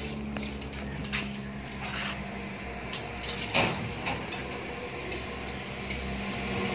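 Light metallic clinks and taps from steel square tubing being handled and measured, with one louder knock about three and a half seconds in, over a steady low hum.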